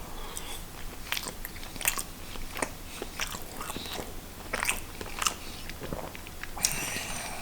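Close-up chewing of a mouthful of microwaved Swedish meatball in sauce, with many short wet mouth clicks and smacks and a longer smacking noise near the end.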